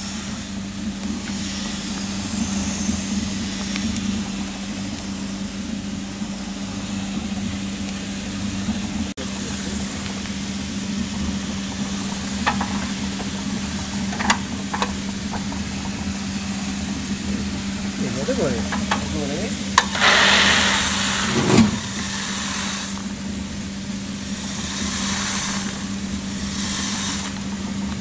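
Probat LP5 drum coffee roaster running with a steady motor hum while freshly roasted beans are stirred in its perforated cooling tray. A few sharp clicks come a little before halfway, and bursts of rushing hiss follow in the second half.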